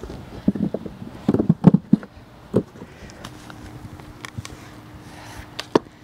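Freshly dug potatoes dropped by the handful into a plastic garden dump cart, a quick run of knocks and thumps as they land on the pile, then one more knock near the end. A faint steady hum underlies the quieter second half.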